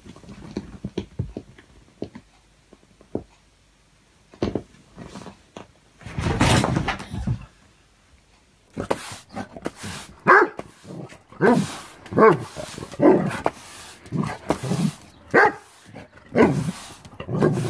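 Dog barking repeatedly, about once a second, from about halfway in, going for a push broom being swept across concrete. Earlier there is one brief loud rustling rush.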